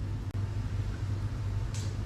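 A steady low rumble, with a short hiss near the end.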